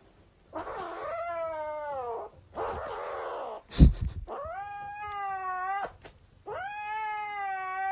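A cat yowling in three long, drawn-out calls, the first falling in pitch. A hiss comes between the first two calls, with a sharp knock about four seconds in.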